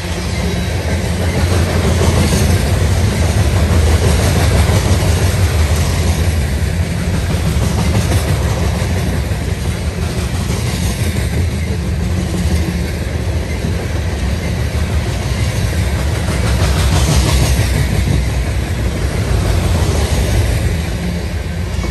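Coal hopper cars of a freight train rolling past close by: a loud, steady rumble of steel wheels on the rails with a running clatter of wheel clacks.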